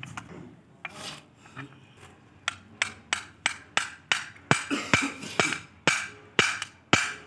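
Metal hand tool being worked on an engine part: a few scattered clicks, then quick, regular metal-on-metal scraping strokes about three a second that grow louder.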